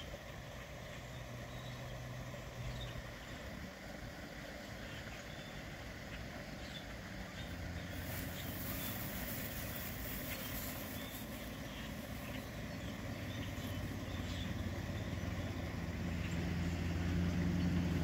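Low hum of a motor vehicle's engine that grows louder toward the end, with many faint, short calls from a large flock of blackbirds scattered through it.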